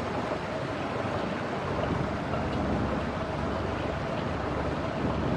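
Steady rushing of wind and water around a sailboat moving slowly through a lock chamber, with a low rumble underneath.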